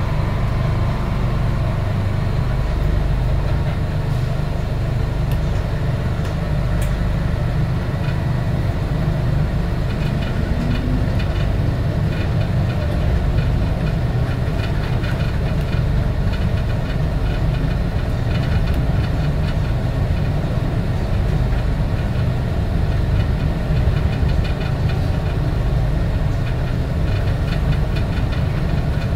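Steady low rumble of a Bombardier Innovia APM 100 rubber-tyred light rail car, heard from on board, with faint ticks higher up from about halfway on.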